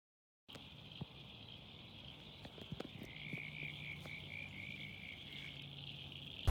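Frogs calling at night: a steady high chorus, with one pulsed call repeating about four times a second through the middle for a couple of seconds, and a few faint clicks. It starts half a second in, after silence.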